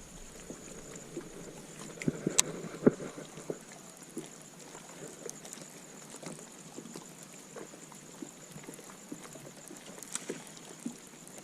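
Fishing rod and reel worked during a cast and retrieve from a boat: scattered light clicks and knocks, a few sharper ones about two to three seconds in, over a steady high-pitched hum.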